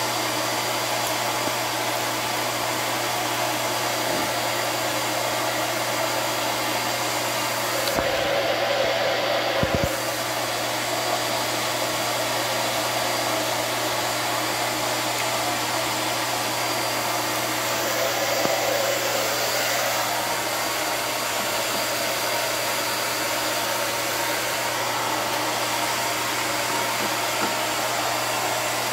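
Steady whooshing air noise with a constant low hum, like a small electric blower motor running, swelling a little about eight and eighteen seconds in.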